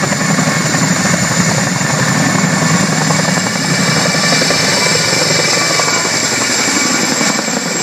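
Boeing CH-47 Chinook tandem-rotor helicopter running loud and steady, its rotors beating rapidly over a steady high turbine whine.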